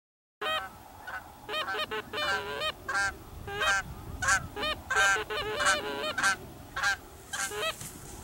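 A flock of Canada geese honking and clucking: many short calls in quick succession, several overlapping at different pitches.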